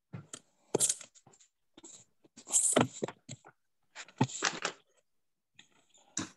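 Irregular clicks, knocks and short rustles of something being handled close to a microphone, heard over a video-call connection.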